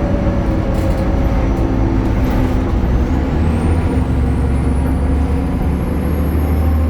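BredaMenariniBus Avancity Plus city bus, Deutz Euro 5 diesel with ZF automatic gearbox, running under way. About three seconds in, the low engine drone grows heavier and a thin high whine rises sharply, then keeps climbing slowly.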